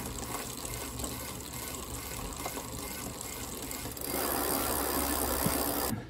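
Chain and rear wheel of a Philodo H8 e-bike whirring as the wheel spins on a stand, the chain running over a newly fitted 7-speed freewheel. The sound gets louder about four seconds in.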